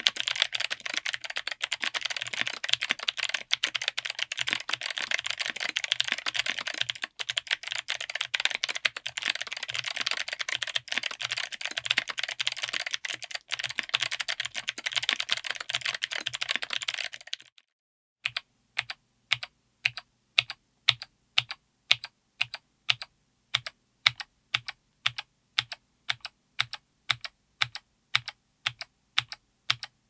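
Mechanical keyboard with Kailh BOX Night Firefly clicky switches, MT3-profile PBT keycaps, an FR4 plate and an aluminium case. It is typed on fast, with continuous overlapping clicks. A little over halfway in, the typing gives way to single keys pressed and bottomed out one at a time, about two sharp clicks a second.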